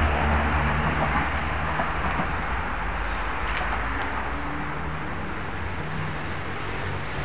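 Steady low vehicle rumble with a broad noisy wash, slowly fading.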